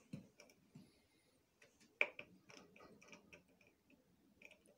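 Faint ticking clicks of a Hamilton C3 ventilator's press-and-turn knob being turned and pressed to adjust a setting. The clicks come irregularly, several a second in short runs, the loudest about two seconds in.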